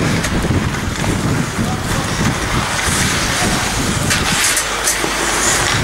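Ice hockey rink game noise: a steady rumble of hall and crowd noise, with short hissing scrapes of skates on the ice about three, four and five and a half seconds in.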